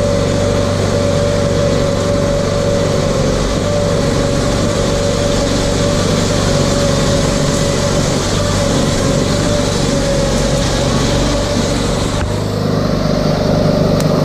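RS1000's engine running steadily under way, with a thin steady whine over the motor noise. About twelve seconds in, the higher noise drops away and a steadier low hum remains.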